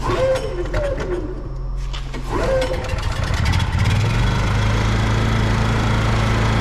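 Honda 7000 generator being pull-started on its recoil cord, its starter battery dead: a few short pulls, then the engine catches about two and a half seconds in and settles into a steady run by about four seconds in, starting after sitting unused for a couple of years.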